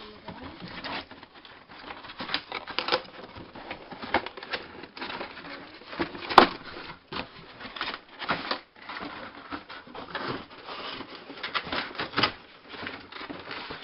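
Cardboard box and packaging being handled and pulled open: irregular rustling, scraping and small clicks, with one sharp knock about six seconds in.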